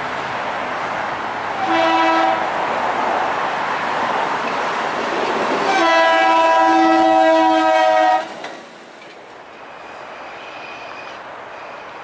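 Metro-North commuter train's multi-chime air horn over the rumble of the train rolling through a grade crossing: a short blast about two seconds in, then a long loud blast from about six to eight seconds, the close of the crossing signal. The sound then drops suddenly to a quieter distant train rumble.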